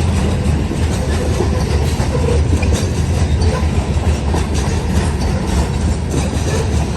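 Loaded freight train cars rolling past with a steady heavy rumble and the wheels clacking over the rails.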